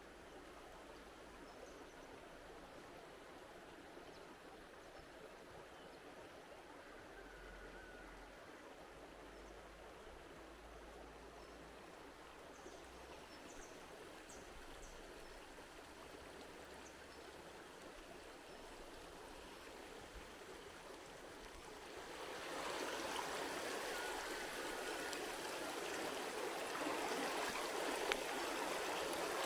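Steady rushing noise, like flowing water or wind on the microphone, that gets louder about three-quarters of the way through.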